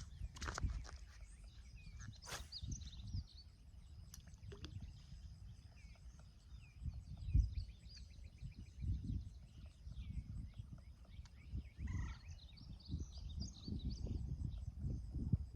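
Outdoor pond-side ambience: many small birds chirping over a low wind or handling rumble, with a few sharp knocks in the first second.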